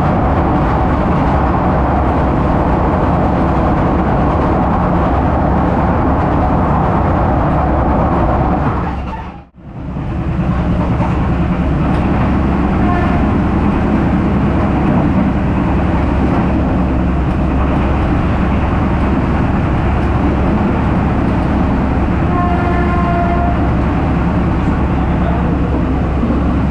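Bengawan passenger train running at speed, heard from inside a coach: a steady, loud rumble of wheels on rail and carriage noise. About nine seconds in the sound dips almost to nothing for a moment and then comes back.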